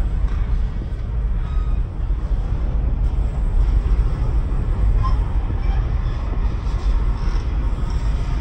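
Double-stack intermodal freight train's well cars rolling past close by: a steady low rumble of steel wheels on rail, with a short faint squeak about five seconds in.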